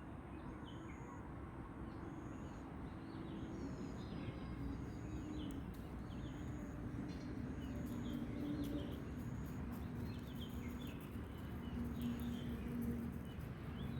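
Birds chirping, with scattered short calls and a thin high note repeating about once a second, over a steady low background rumble.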